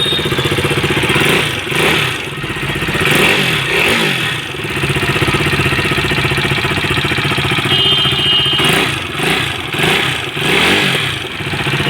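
KTM RC 390 single-cylinder engine running with a ticking in the valve train, blipped up and back down to idle a few times. The tick comes from a worn rocker arm and a cut camshaft, caused by oversize shims that left no valve clearance.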